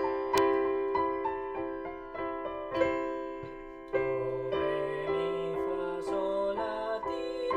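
Piano playing: a melody over held chords, with a lower bass line coming in about four seconds in.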